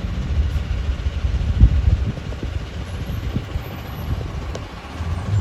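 Low outdoor rumble of street traffic, with a brief louder surge about one and a half seconds in.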